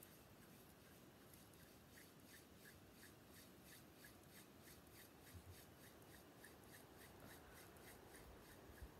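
Palms rubbing together in faint, even strokes, about three a second. A soft low bump near the end.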